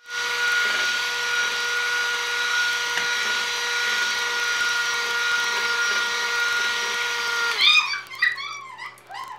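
Electric hand mixer running steadily with a high motor whine and hiss, its beaters whipping a thick mango-cream mixture in a bowl. About seven and a half seconds in it is switched off and its pitch drops as it winds down.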